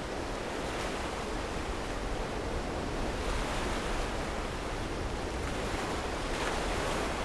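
Small sea waves washing over rocks and sand at the shoreline, a steady surf hiss.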